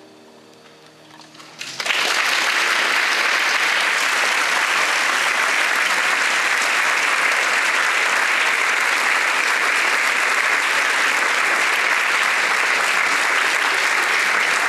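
Audience applauding, starting suddenly about two seconds in and going on steadily at an even level. Before it, quiet music fades out.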